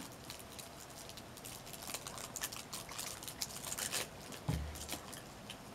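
Quiet sips from a plastic water bottle with light handling clicks, then a short, low thud about four and a half seconds in as the bottle is set down on the table.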